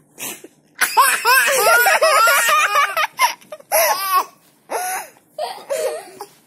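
A baby laughing hysterically: one long run of rapid, high-pitched belly laughs starting about a second in, then a few shorter bursts of laughter with pauses between them.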